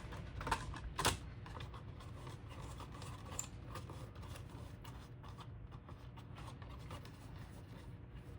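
Light clicks and rustling of small objects being handled, with two louder clicks about half a second and a second in, over a steady low hum.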